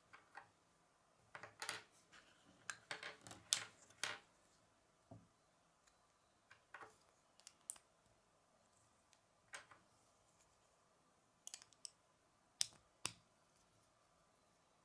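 Small plastic Lego plates clicking and snapping together as they are pressed on by hand: a quick flurry of clicks in the first few seconds, then scattered single clicks.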